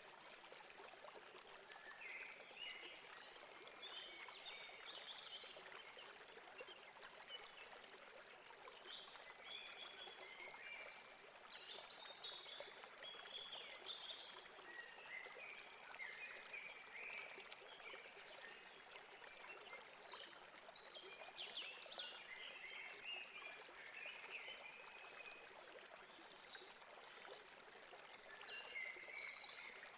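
Faint, steady rush of flowing river water, with many small birds chirping on and off throughout.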